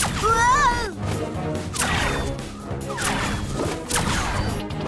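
Cartoon action soundtrack: background music under a series of sharp hits and swishes about a second apart, some sweeping down in pitch, with a short cry near the start.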